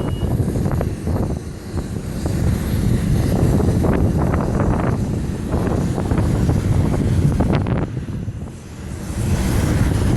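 Airplane engine noise mixed with gusty wind buffeting the microphone, dipping briefly twice.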